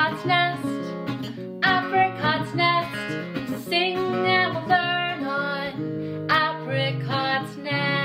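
Theme-song music on strummed acoustic guitar with a melody line over it, settling on a held chord near the end.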